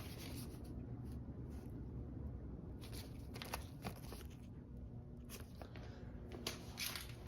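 Faint handling noises: a few light clicks and taps, scattered over the second half, as a clip-removal tool and mower parts are handled, over a low steady hum.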